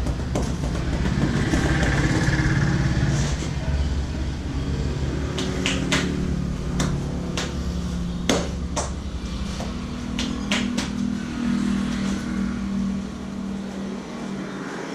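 A motor vehicle engine running close by, a steady low rumble. Over the middle stretch comes a scattering of sharp clicks, the loudest a little past halfway.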